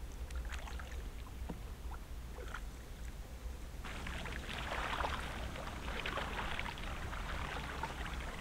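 Water splashing and trickling along a canoe's hull and paddle as the canoe is paddled along a river, faint at first and getting louder about four seconds in, with small irregular drips and knocks and a steady low rumble underneath.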